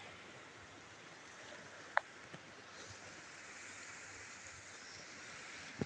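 Faint, steady outdoor background hiss, with one sharp click about two seconds in.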